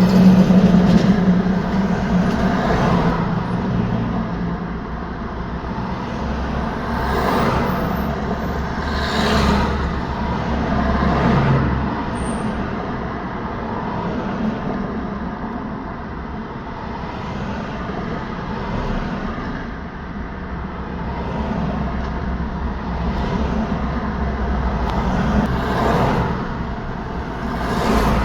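Road traffic: a steady stream of cars and trucks passing, tyre and engine noise swelling and fading as each vehicle goes by, with the loudest pass at the very start.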